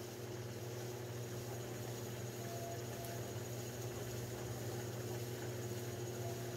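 Electric potter's wheel running steadily, a low even hum with a steady tone, as a lump of wet clay is pressed and centered on the spinning wheel head.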